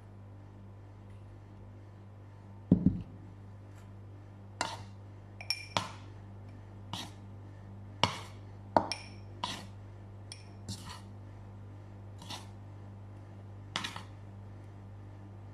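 Kitchen bowls and utensils knocking and clinking on a tabletop: a dull thump about three seconds in, then about a dozen light, ringing clinks spread over the next ten seconds. A steady low hum runs underneath.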